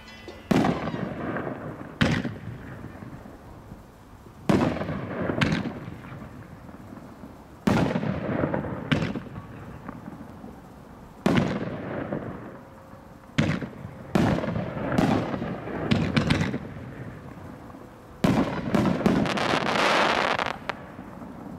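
Great Grizzly Majestic Nights 500-gram firework cake firing its shots one after another: sharp bangs every second or two, each trailing off. Near the end comes a longer crackling stretch from a glitter burst.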